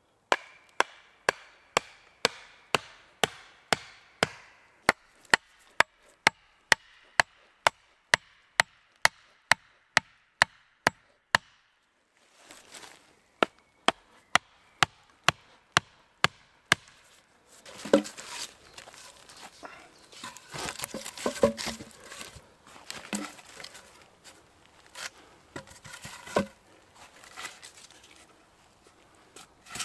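A hatchet pounding wooden stakes into the forest floor: sharp wooden knocks, about two to three blows a second, in two long runs with a short pause around the middle. After that come irregular heavier wooden knocks and rustling as cut logs are laid between the stakes.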